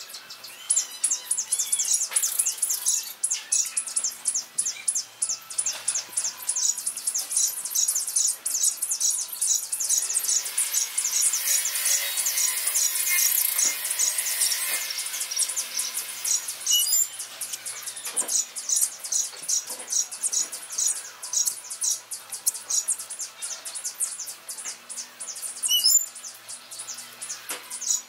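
Sparrows chirping busily and without a break, several short high chirps a second, growing denser for a few seconds midway.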